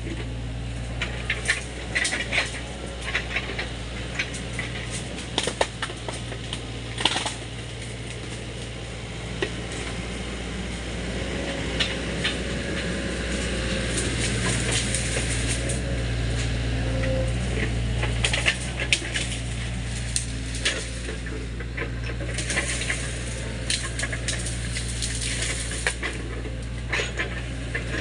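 Sany SY55C mini excavator's diesel engine running steadily under load, a little louder around the middle, with frequent sharp cracks and clanks as the machine pushes through brush and bamboo.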